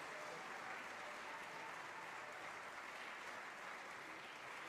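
Audience applauding steadily at the end of a band performance.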